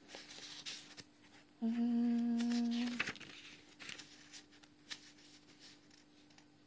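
A woman hums a long, level 'hmmm' for about a second and a half while thinking, with soft rustling of papers and a few small clicks of things being moved around it. A faint steady hum sits underneath throughout.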